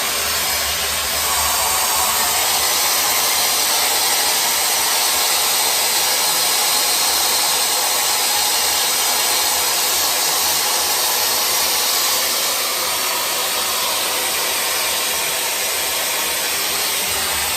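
Tessa Air Stick hot-air styler blowing steadily as it curls hair, a hair-dryer-like rush of air that gets a little louder about a second in and eases slightly past the middle.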